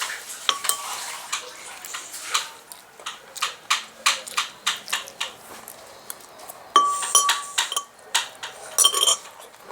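Cutlery clinking and scraping against a plate or bowl while eating: irregular sharp clicks throughout, with a short high squeak about seven seconds in.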